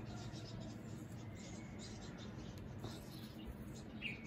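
Faint scratching and light ticks of a spoon tipping powdered organic fertilizer onto potting soil in a plant pot, with a short bird chirp near the end.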